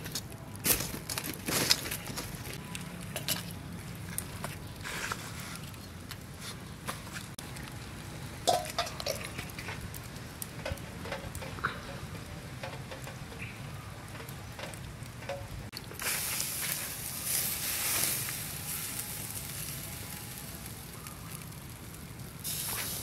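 Charcoal fire crackling with scattered pops and clicks. About two-thirds of the way in, a steady sizzling hiss starts and runs for several seconds as a whole marinated chicken goes onto a wire grill over the hot coals, then cuts off suddenly near the end.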